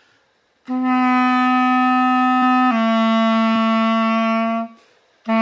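Clarinet playing two long held notes of about two seconds each, the second a step lower than the first, with a third note starting right at the end. These are the D and C of a beginner's three-note ending phrase, D, C, B.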